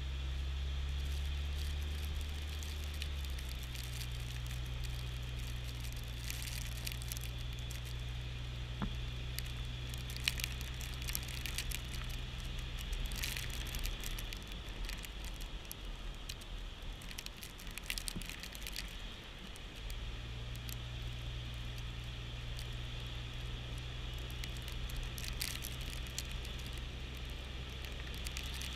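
Jeep Wrangler driving slowly on a sandy dirt road, heard from low beside the front tyre: a steady low drivetrain hum that drops away for a few seconds midway, with scattered crackles and crunches of sand and grit under the tyre.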